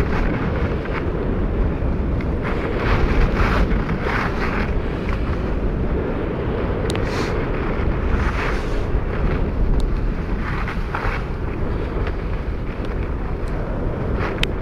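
Wind buffeting the microphone during a downhill run on a ski slope, with repeated, irregular hissing scrapes of edges sliding across the snow.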